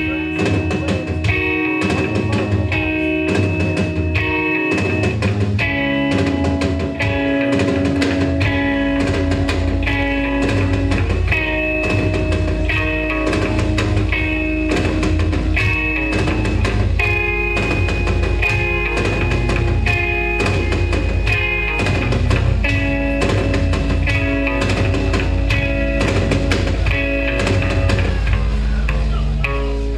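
Punk band playing live: a repeating electric guitar riff over a drum kit with a steady beat, and a heavy bass low end that joins about eight seconds in.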